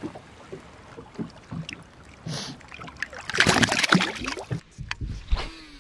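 A small largemouth bass being let go into the lake. Light lapping and small splashes come first, then about three seconds in a burst of splashing at the surface that lasts about a second and a half as the fish goes back into the water.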